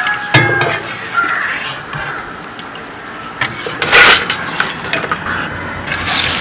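Crisp fried tapioca chips clattering and rattling as they drop into a perforated steel strainer, loudest about four seconds in. Near the end, raw tapioca slices go into hot oil and a steady sizzle starts.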